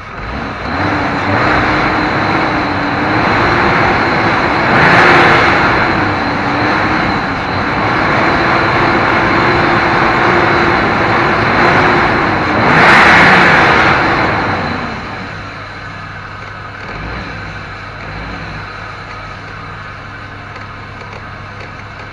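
A motor vehicle running loud and close for about fifteen seconds, with a steady engine note and two louder surges. It then fades to a quieter steady engine hum.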